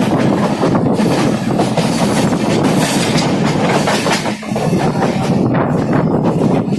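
Wheels of the Punjab Mail's passenger coaches running at speed, heard from on board: a continuous loud rumble with irregular clattering clicks over rail joints and points.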